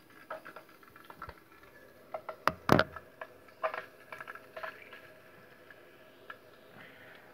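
Handling noise at a sink: scattered light clicks and taps, with one loud double knock about two and a half seconds in.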